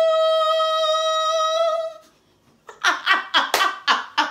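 A woman sings one long, high, wordless 'aaah' note, held steady for about two seconds with a slight waver at the end, as a mock heavenly-choir note. After a brief silence, quick choppy bursts of voice follow near the end.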